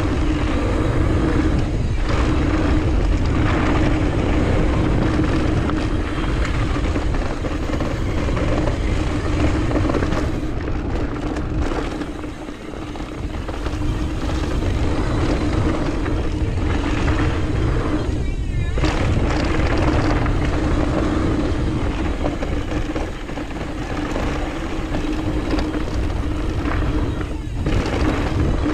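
Wind rushing over the microphone with the rumble and rattle of a mountain bike rolling fast down a dirt trail, a steady buzz underneath. The noise eases briefly twice, about twelve and eighteen seconds in.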